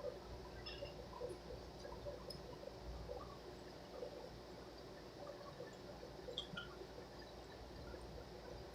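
A person chewing a burger: faint, wet mouth smacks and small clicks at irregular moments.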